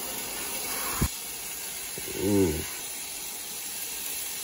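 Bacon strips sizzling in a frying pan: a steady hiss, with a single knock about a second in and a brief voice sound a little after two seconds.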